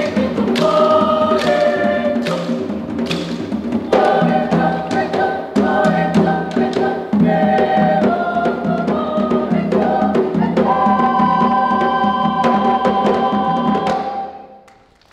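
Mixed choir singing in Makassarese, with gendang drums and bamboo percussion knocking a quick rhythm. From about ten seconds in, the voices hold a final chord, then the music dies away near the end.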